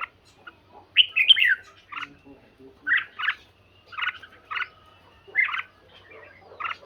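Red-whiskered bulbuls singing against each other: short chirping phrases repeating about once a second, with a louder burst of gliding notes about a second in.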